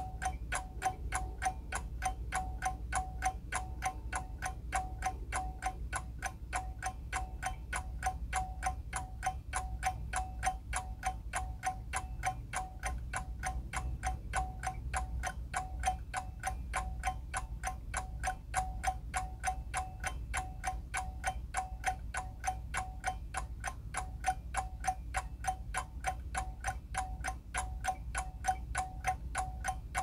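Ticking of a Seiko Corona Bi-Tone hand-wound mechanical alarm clock: its escapement runs in a rapid, perfectly even tick-tock, each tick with a slight metallic ring.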